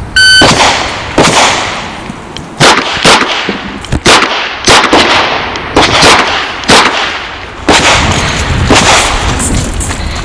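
A shot timer gives one short electronic beep, then a Chiappa Rhino revolver fires a string of rapid single shots, each with a sharp crack and a ringing echo, spaced about half a second to a second apart.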